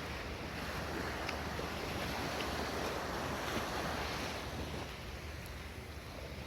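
Sea waves washing onto a sandy beach, a steady rushing wash that swells in the middle and eases near the end, with wind buffeting the microphone.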